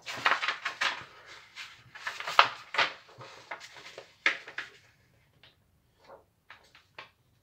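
A sheet of A4 printer paper rustling as hands smooth, fold and crease it. There is a dense run of rustles for the first five seconds or so, then only a few faint, scattered ticks.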